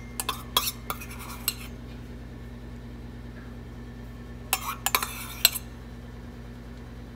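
Metal spoon clinking and scraping against a ceramic baking dish as olive oil with garlic is spooned over the sliced vegetables, in two short clusters of clicks: one in the first second and a half, another about four and a half seconds in. A steady low hum runs underneath.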